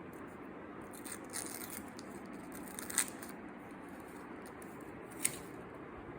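Packaging and small parts being handled: light rustling, then two sharp clicks, one about three seconds in and one about five seconds in, over a steady faint hiss.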